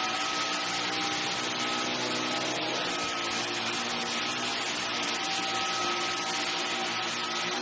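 Dyson V15 cordless stick vacuum running steadily: an even rushing noise with a steady high whine over it.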